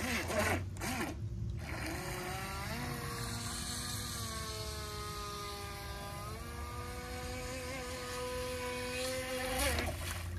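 Tempo RC boat's motor running at speed across the water, a steady pitched whine that climbs in pitch twice as the throttle is opened, with a brief louder rush near the end as the boat turns and throws spray.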